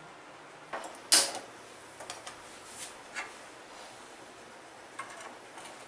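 A few scattered clicks and knocks, the loudest one about a second in, as a black clay cooking pot is handled and set down on the grate of a lit gas stove burner.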